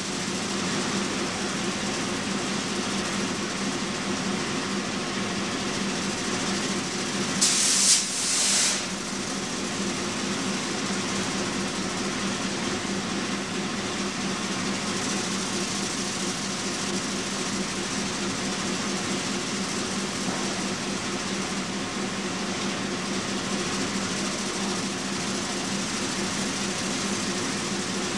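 N scale model trains running on the layout track, a steady small-motor whir with wheel rumble. Two short hisses come about seven and a half seconds in.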